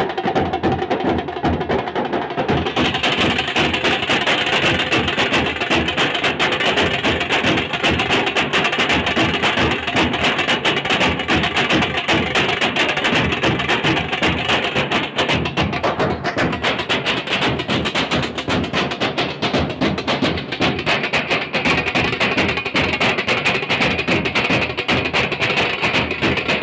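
A drum band beating large double-headed drums with sticks in a loud, fast, continuous rhythm.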